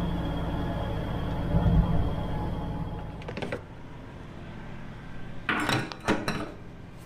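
Semi truck's diesel engine idling, heard from inside the cab, with a low thump about two seconds in. After a cut, metal clanks and scrapes as a diesel pump nozzle is fitted into the truck's fuel tank filler.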